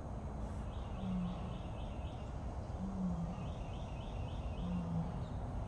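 Distant lion roaring, a series of short low grunts about every two seconds, while a bird twitters twice in short high trills.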